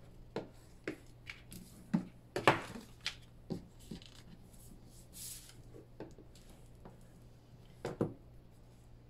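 White cardstock being folded by hand along its score lines on a cutting mat: scattered short paper crackles, taps and handling noises, the loudest about two and a half seconds in, with a brief rubbing sound around the middle.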